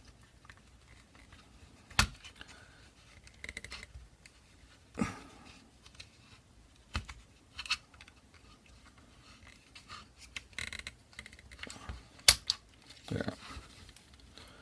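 Scattered small clicks and short scrapes from the parts of an airsoft gun's lower receiver as the fire selector switch is wiggled out against its spring-loaded detent. A few sharp clicks stand out, and the loudest comes near the end as the switch comes free.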